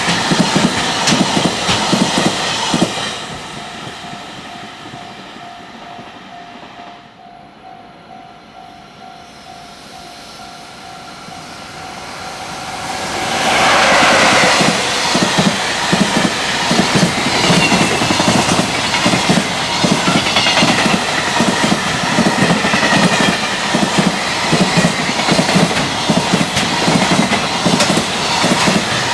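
Freight trains passing at speed, wheels clacking over the rail joints: one train's rumble dies away about three seconds in, a level-crossing bell dings faintly in the lull, then the next freight train arrives about thirteen seconds in and passes loudly with a steady clickety-clack.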